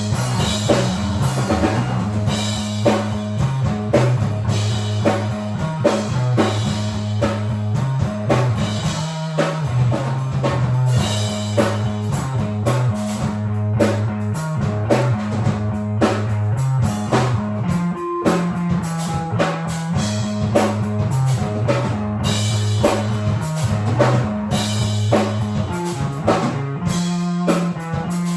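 Rock music with a drum kit keeping a steady beat over a bass line and guitar.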